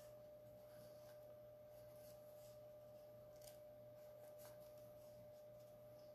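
Near silence: room tone with a faint steady whine and a low hum, and a few faint soft ticks of a small paintbrush against the foam palette and the cloth.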